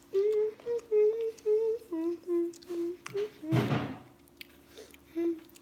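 A girl humming a short tune of about a dozen brief notes, stepping lower partway through. It is followed by a short, loud burst of noise and one last hummed note near the end.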